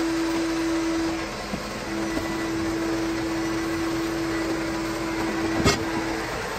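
Vacuum cleaner running steadily with a constant motor hum, picking up sanding dust, with a sharp knock a little over five and a half seconds in.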